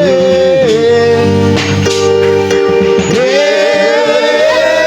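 Worship band music led by guitar, with long held notes that bend and slide in pitch.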